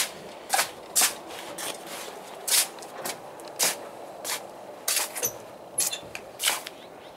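Footsteps scuffing on a hard tiled floor, roughly two steps a second, stopping near the end.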